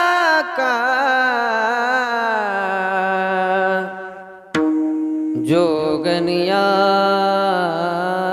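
A man singing a Marathi devotional bhajan in a long, ornamented style, with notes held and bent, over a steady held drone note. The singing fades about four seconds in and resumes about a second later.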